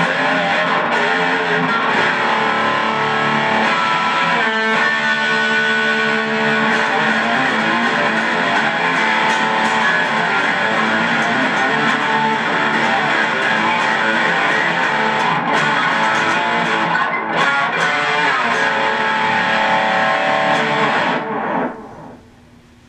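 Electric guitar played continuously through a Boss Katana Mini amplifier, with the amp's controls turned all the way up and delay on. The playing stops about a second before the end.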